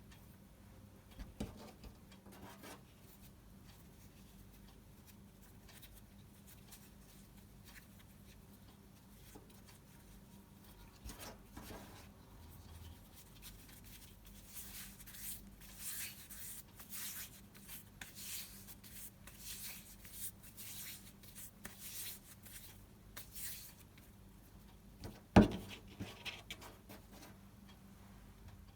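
Quiet rubbing and rustling of hands handling things at a kitchen worktop, with one sharp knock about 25 seconds in.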